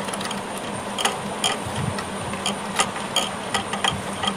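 Irregular metallic clicks and light rattles as an electric disc horn is worked loose from its mounting by hand and its 10 mm bolt is undone, over a steady low hum.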